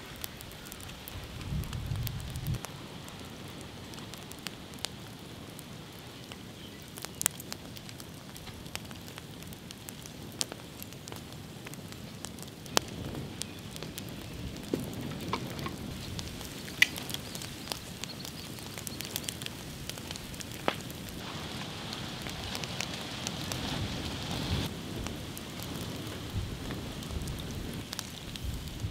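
Open wood fire burning, a steady hiss with scattered sharp crackles and pops from the burning logs.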